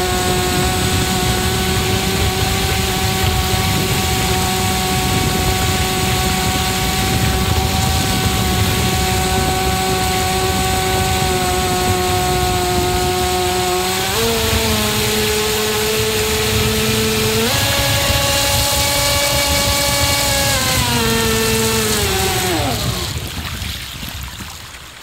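Remote-control boat's motor running at speed, heard from on board over rushing water. Its pitch steps up twice, about two-thirds of the way in and again a few seconds later, then slides down as the boat slows, and the sound fades out at the end.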